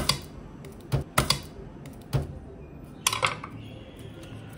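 A chef's knife knocking sharply on a wooden chopping board as garlic cloves are cut, a handful of separate irregular knocks.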